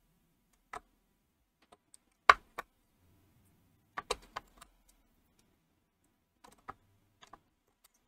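AAA batteries being pushed into a multimeter's plastic battery compartment: scattered sharp clicks and taps of the cells against their spring contacts and the plastic case. The loudest click comes about two seconds in, with small clusters of clicks around four seconds and again near seven.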